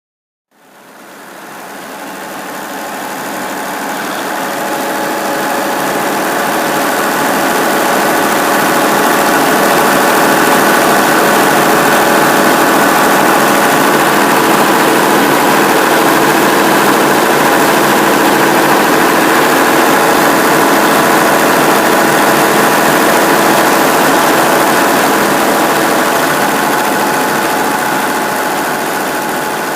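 Cummins diesel engine powering the sawmill, running at a steady speed. It fades in over the first few seconds, then holds an even note.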